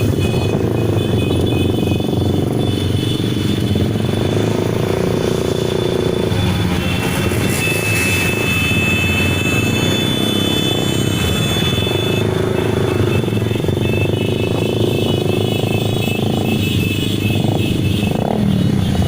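Many motorcycle engines running together as a convoy rides past, a steady, loud mix of engine sound.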